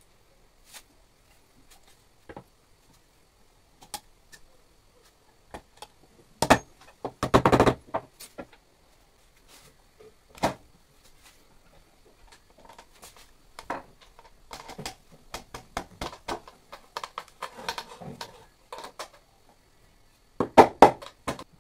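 Wood knocking and clattering against wood as the plate's bowl is handled and fitted onto its pedestal base. There are scattered single knocks, a quick run of knocks about six to eight seconds in, lighter rattling later, and another short burst of knocks near the end.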